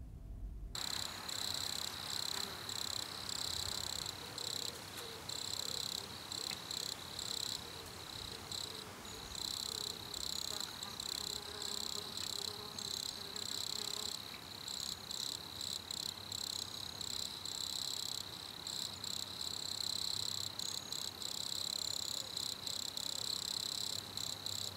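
A chorus of crickets chirping, steady and shrill, starting suddenly about a second in.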